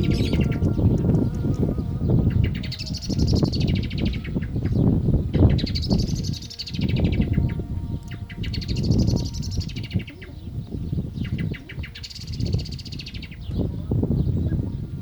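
Common blackbird singing, repeating a high warbled phrase about every two seconds, five times. Under it run a low steady rumble and the long held notes of the call to prayer.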